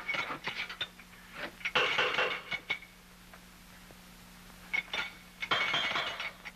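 Metal tool clanking and scraping on metal water pipes in three short bouts, over a steady low hum.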